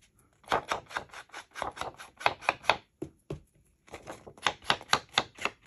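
Ink blending tool tapping ink onto the torn edges of a paper sheet: quick dabs, about five a second, in two runs with a pause of about a second between.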